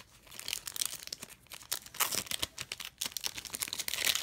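Foil wrapper of a Pokémon trading-card booster pack crinkling and tearing as it is opened by hand: a dense run of crackles that starts a moment in.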